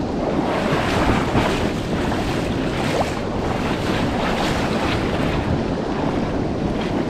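Steady rush and splash of river water around a person wading through the shallows, with wind buffeting the microphone.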